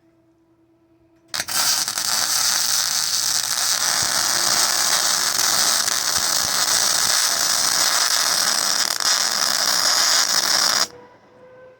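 Electric arc welding on steel: a steady, loud crackling hiss that starts abruptly about a second in and cuts off sharply near the end as the arc is broken.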